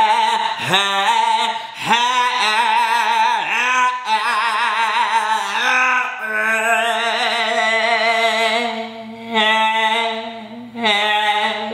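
A voice singing a long, drawn-out run on one held word. It holds notes with vibrato and swoops up and down in pitch, breaking off briefly a few times.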